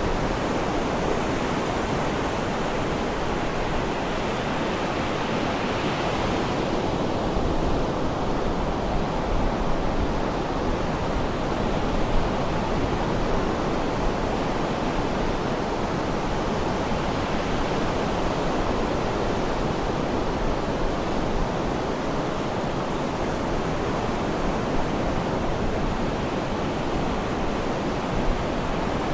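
Sea surf: a steady, continuous rush of water noise with no separate wave breaks standing out.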